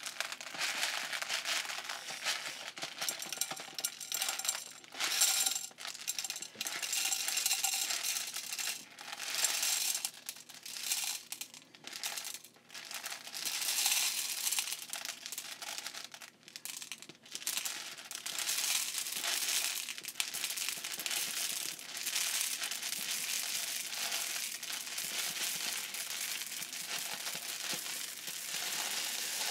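Many small plastic beads rattling and sliding around inside a clear plastic storage box as it is tipped back and forth: an uneven patter of small clicks that swells and fades.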